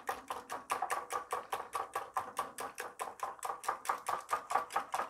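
Wire whisk beating raw eggs in a glass bowl, clicking against the glass in a fast, even rhythm of about seven strokes a second.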